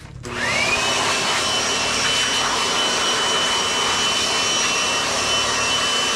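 Electric blower motor switched on: its whine rises quickly to a steady high pitch, over a loud, even rush of air.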